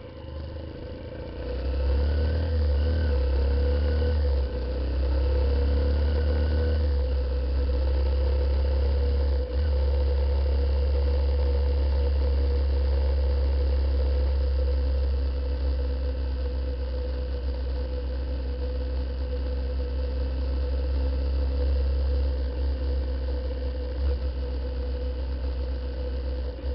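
Honda CBF125 motorcycle's single-cylinder engine running steadily while riding, under a heavy low wind rumble on the on-board microphone. It gets louder about two seconds in as the bike picks up speed.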